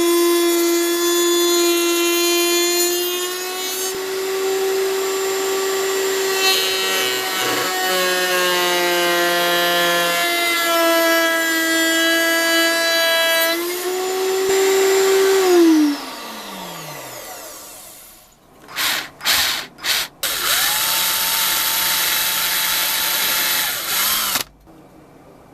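An electric power tool's motor runs with a steady high whine, is switched off about 16 seconds in and winds down, falling in pitch. It gives a few short spurts, then runs steadily again for about four seconds before stopping.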